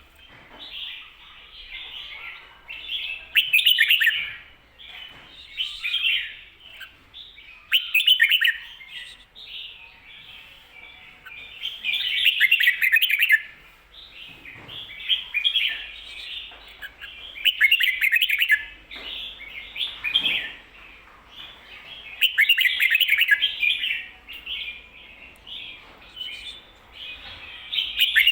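Red-whiskered bulbul singing: a loud, quick warbled phrase comes every four to five seconds, with softer chatter between. This is the doubled 'ko-ta-ra' song type that keepers play to teach young bulbuls.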